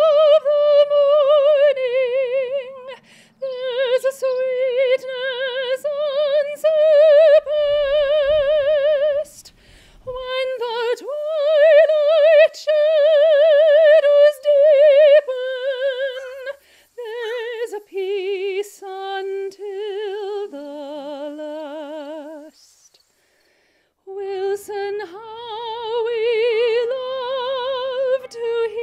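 A woman's solo classical singing voice in a high range, holding long, slow notes with wide vibrato. The melody sinks lower in the middle and climbs back after a short break near the end.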